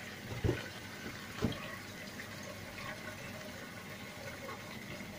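Plastic wrap rustling and crinkling as it is pulled off a foam tray of grapes, with a couple of soft knocks of the tray against the stainless steel sink counter about half a second and a second and a half in.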